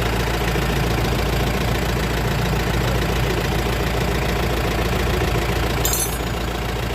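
Mahindra Scorpio's engine idling steadily while the brakes are bled, with a brief click about six seconds in.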